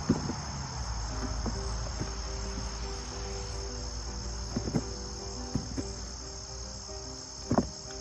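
Steady high-pitched chorus of insects, likely crickets, with faint music underneath and a few sharp knocks, the loudest near the end.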